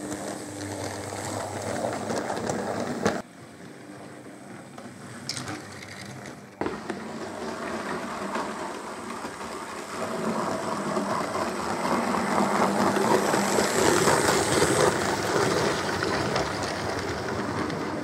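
OO gauge model railway locomotives running on the track: a steady whirr of small electric motors and wheels on rail. It drops suddenly about three seconds in, jumps back up near seven seconds and is loudest in the second half.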